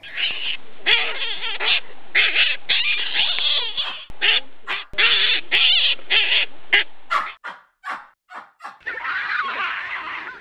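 A rapid series of short, harsh animal calls that come in choppy bursts. They thin out to a few separate calls a little after the middle, then come thick again near the end.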